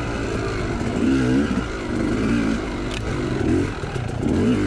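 Yamaha YZ two-stroke dirt bike engine revving up and down again and again as the rider works the throttle through soft sand.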